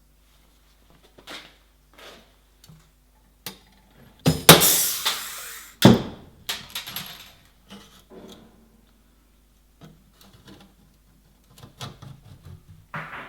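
Scattered knocks and clatter of metal being handled, with a loud scraping rattle about four seconds in that lasts about a second, then a sharp knock.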